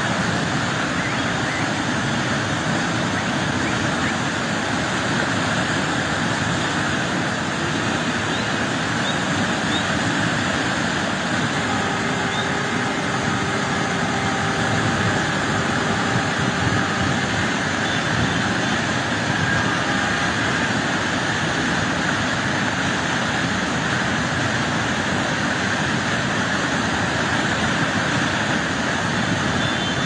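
A small mountain waterfall: water pouring over rock into a shallow pool and rushing around boulders, a steady, even rush of falling water.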